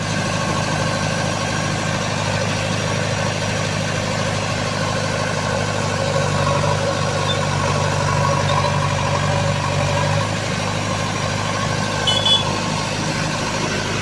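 JCB 3DX backhoe loader's diesel engine running steadily at idle, a little louder between about six and ten seconds in. A brief high-pitched chirp comes about twelve seconds in.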